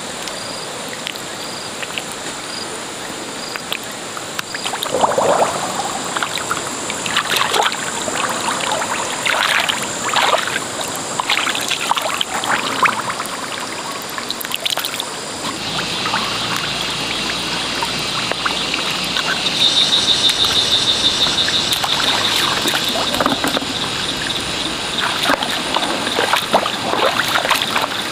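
Wet mud squelching and shallow water splashing and trickling in irregular bursts as mussels are dug out of the mud by hand. A steady high thin tone runs underneath.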